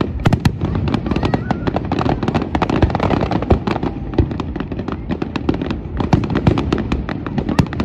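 Aerial fireworks going off in rapid succession: a dense run of sharp bangs and crackles with no break. The loudest bangs come about half a second in.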